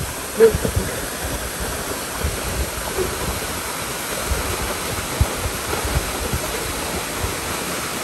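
Steady rush of Henrhyd Falls' water dropping into its pool, with irregular low rumbles underneath.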